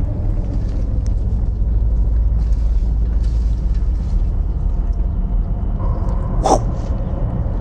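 Ambience track: a steady low rumble. Over it come faint rustles of paper lots being stirred in a box, with one short, sharp crackle about six and a half seconds in.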